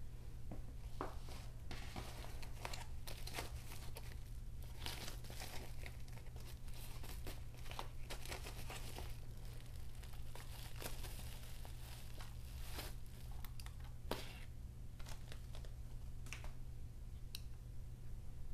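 Crinkling and rustling of the gaming mouse's white plastic wrap as it is handled and pulled off, with irregular crackles and small sharp ticks, over a steady low hum.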